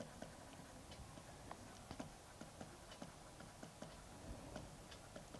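Near silence, with faint scattered ticks of a stylus tapping on a writing tablet as handwriting goes on.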